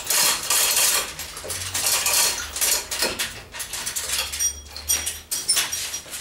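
Rapid, repeated metallic clinking and rattling of metal parts being handled, with short high ringing notes.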